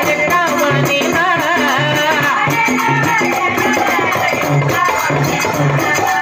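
Live North Karnataka bhajan: a man singing a wavering devotional melody over a fast, steady jingling rhythm and low drum beats.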